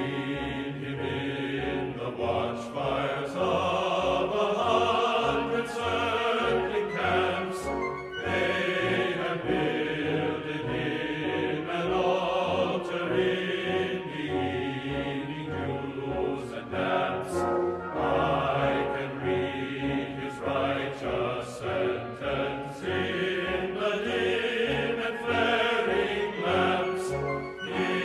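Background music with choir-like singing over orchestral accompaniment.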